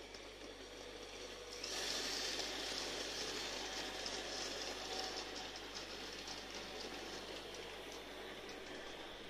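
Märklin Z-scale model freight train running past on the track: a steady rattling hiss of the little wheels on the rails, with faint rapid clicks. It gets noticeably louder about two seconds in as the wagons come close, then slowly fades.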